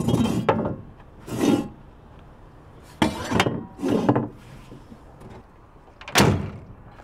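A shovel scraping and knocking in a pickup truck's bed: five separate scrapes and thuds with short pauses between them, the loudest about six seconds in.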